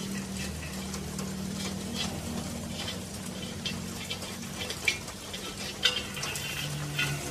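Light metallic clicks and scrapes of a metal fitting being handled against a metal pressure tank's threaded port, with two sharper clicks about five and six seconds in, over a steady low hum.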